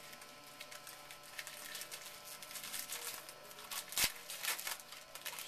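Light rustling and crinkling of baseball cards and a pack wrapper being handled, with one sharp knock about four seconds in.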